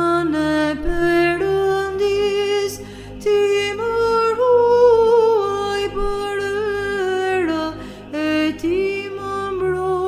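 Solo Byzantine chant: one voice draws out long, ornamented melismatic notes over a steady low drone (ison). The drone changes pitch about two seconds in and again near the end.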